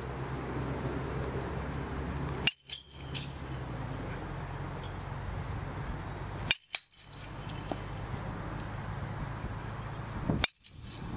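Metal baseball bat hitting pitched balls three times, about four seconds apart, each a sharp ping with a brief metallic ring, over steady outdoor background noise.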